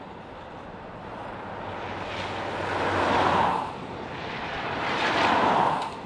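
Freight train of double-stack container cars rolling past, a steady wheel-on-rail rumble that swells louder twice and drops back quickly each time.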